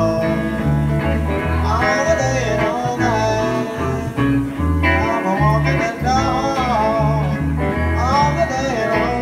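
Live country band: a man sings in short phrases over his electric guitar, while an upright double bass plays a steady line of low notes underneath.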